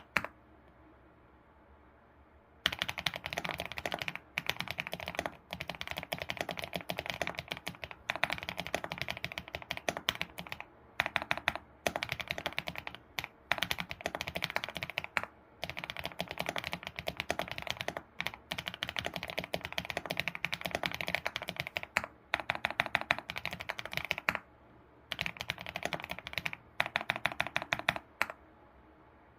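Fast typing on an ABKO computer keyboard: runs of quick key clicks in bursts, broken by short pauses, with a pause of about two seconds at the start.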